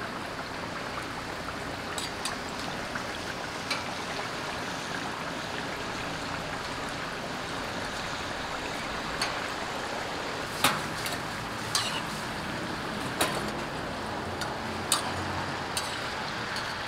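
Hotteok frying in oil on a griddle, a steady sizzle, with a few sharp clicks scattered through it.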